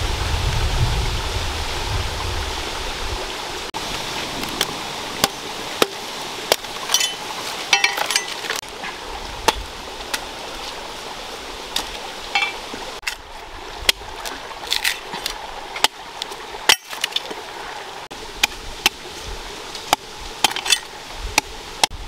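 A large knife chopping into a young green coconut, with irregular sharp chops and clicks. A rocky stream runs steadily underneath.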